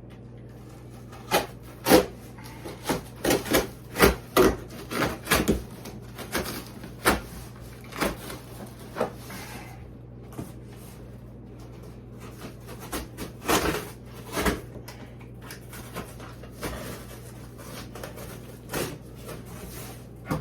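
Utility knife cutting a cardboard shipping box, with irregular scrapes, rips and knocks as the cardboard is sawn through and handled. The blade is dull enough to need replacing.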